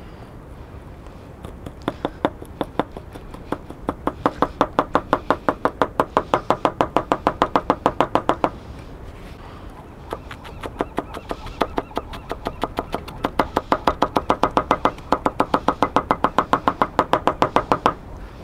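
Chef's knife chopping fresh herbs on a wooden cutting board: quick, even knocks of the blade on the board at about five or six a second, in two long runs with a short pause about halfway through.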